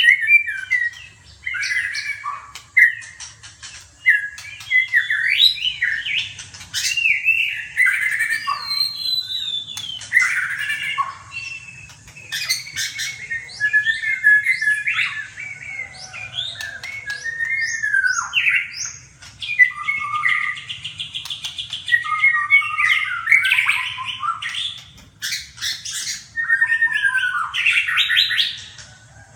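Songbirds singing loudly and continuously in varied whistled phrases, fast trills and sweeping notes with only brief pauses, typical of caged songbirds singing against each other in a contest.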